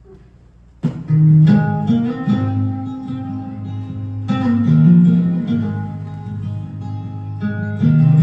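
Acoustic guitar music starting suddenly about a second in, with chords struck afresh every few seconds and left to ring.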